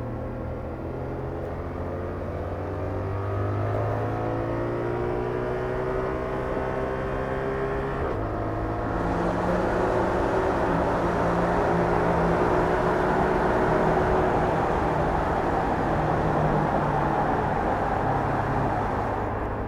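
Yamaha R7's parallel-twin engine through its stock exhaust, heard from the rider's seat under way: the engine note rises steadily through the first eight seconds, drops suddenly at an upshift, then pulls up again louder with more rush of road noise.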